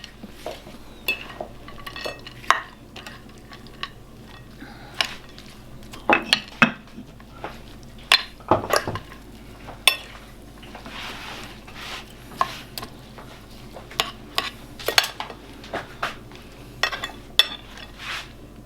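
Utensils clinking, knocking and scraping in a mortar as green papaya salad is tossed and mixed. The strokes are irregular, with a few heavier knocks about 6 and 9 seconds in.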